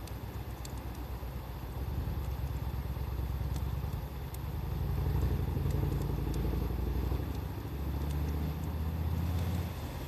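Wood fire crackling, with scattered sharp pops, under a loud low rumble that swells twice and holds steady.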